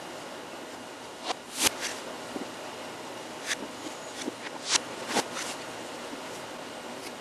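Scattered footsteps and stomps on a floor: a run of sharp, irregular taps and knocks, loudest about one and a half seconds in and again near five seconds in, over a steady hiss.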